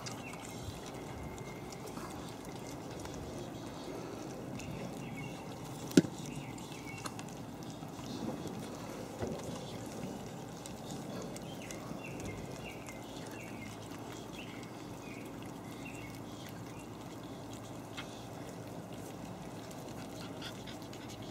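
Havanese puppies eating soft food from stainless steel puppy-saucer bowls, with small wet lapping and chewing sounds, and one sharp knock about six seconds in.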